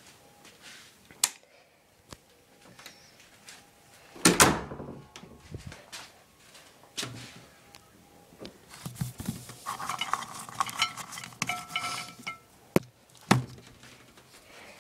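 Household objects being handled: scattered knocks, a loud bang about four seconds in, then a few seconds of clinking and rattling, and two sharp clicks near the end.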